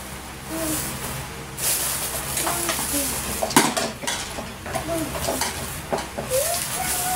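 Granulated white sugar being scooped with a spoon and poured into thin plastic bags: a gritty rustle of sugar with plastic bags crinkling, in irregular bursts. A sharp tap about three and a half seconds in.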